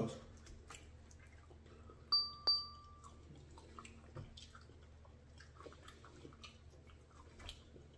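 Two quick, bright chime-like dings about half a second apart, the ringing dying away within about a second. Faint chewing and small clicks around them.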